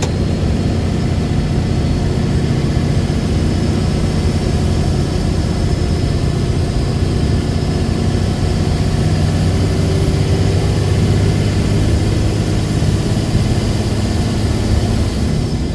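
Cummins diesel pickup driving, its engine running at a steady drone. A G56 six-speed manual transmission adds noise that is "so loud," with a faint high whine over the engine.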